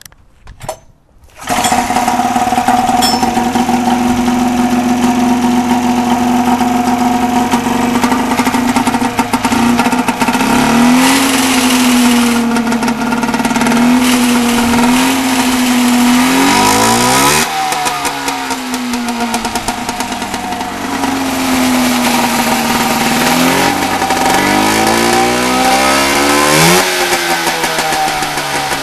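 Fuji 500 two-stroke twin snowmobile engine from a 1986 Polaris Indy 500, pull-started: it catches about a second and a half in and settles into a steady run. From about ten seconds in it is revved up and back down several times, its pitch rising and falling.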